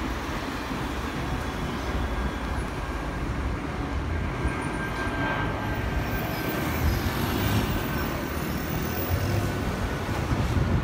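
Airbus A330-200F freighter's Rolls-Royce Trent 700 jet engines passing overhead: a steady low rumble with a faint high whine.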